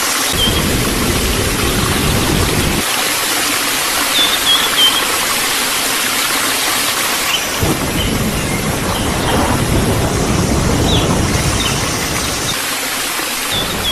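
Steady rushing noise like rain or running water, with brief high chirps now and then and a low rumble in two stretches.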